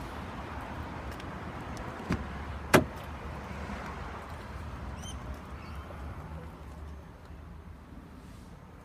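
Car door of a Holden Commodore sedan being shut with a sharp knock just under three seconds in, after a softer knock, with a low steady hum underneath that fades near the end.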